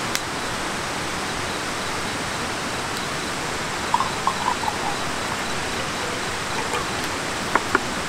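Portable gas stove burner hissing steadily. Plastic crinkles around four seconds in, and two sharp clicks come near the end.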